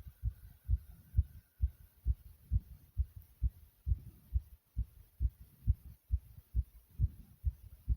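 A person's heartbeat, recorded close up: fast, regular low thumps at about two beats a second.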